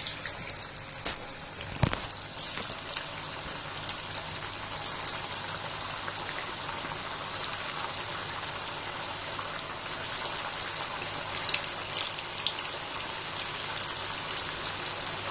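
Hot oil sizzling and crackling steadily as balls of mashed yam tikki mixture fry in it, with a sharper knock about two seconds in as they go into the pan.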